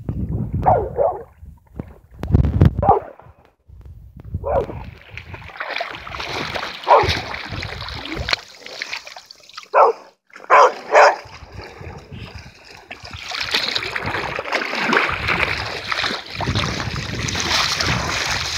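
A black puppy whining and yipping in a string of short calls while swimming, then water splashing steadily as it wades through the shallows.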